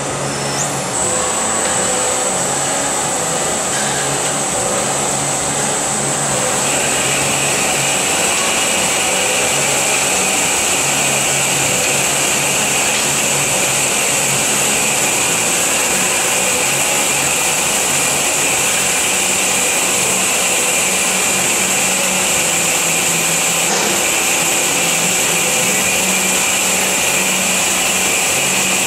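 FMB Omega semi-automatic hydraulic band saw running and cutting solid bar, a steady mechanical noise with a high whine. A second, lower whine joins about six and a half seconds in and holds.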